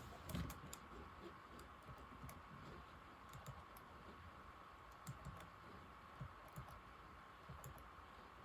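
Keys of an old laptop keyboard being typed on: irregular, soft key clicks, a quick cluster at the start and then scattered presses, over a faint steady hiss.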